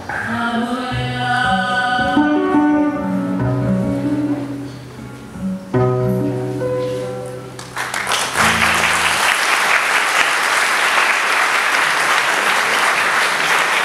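Two women's voices singing the closing phrases in harmony over acoustic guitar, ending on a long held final chord. Audience applause breaks out about eight seconds in and continues.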